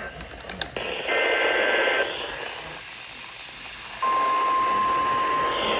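NOAA Weather Radio alert coming in over radio hiss. A short buzzing burst of the SAME digital alert header comes first. About four seconds in, the steady single-pitch 1050 Hz warning alarm tone cuts in abruptly and holds, the signal that a weather warning follows.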